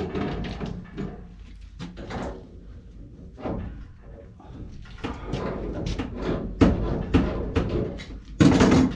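Irregular knocks and clunks of tools and parts being handled during work on a water heater, ending with a louder short rattling burst near the end.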